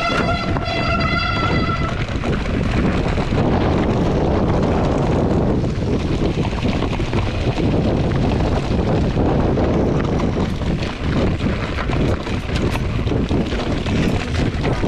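A 2019 Rocky Mountain Instinct mountain bike rolling down a rocky dirt track, heard from a camera on the rider. There is heavy wind noise on the microphone and a constant rattle and knocking from the tyres and bike over loose stones. A disc brake squeals with a steady high tone for the first couple of seconds.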